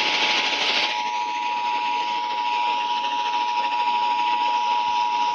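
NOAA Weather Radio 1050 Hz warning alarm tone: one steady, unbroken tone received over a radio with hiss behind it, the hiss heavier in the first second. The tone signals that a warning message follows, here a severe thunderstorm warning.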